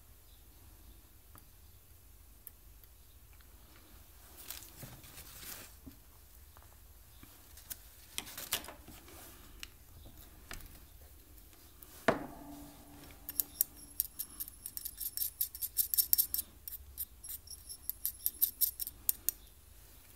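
Small jar of hand-mixed modelling paint being handled: a few soft scrapes as it is stirred, then one sharp click with a brief ring about twelve seconds in as the jar is closed. After that comes a fast run of clicking rattles lasting about six seconds as the jar is shaken.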